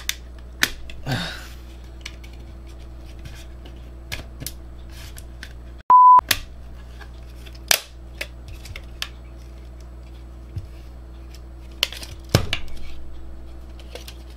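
Scattered clicks and taps of small plastic and metal DVD drive parts being handled and fitted together, with a louder clack that rings briefly about twelve seconds in. About six seconds in, a short, loud, steady bleep tone is edited in, replacing the room sound while it lasts.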